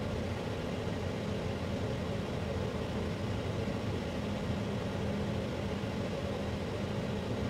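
Steady low hum of background room noise with no distinct events.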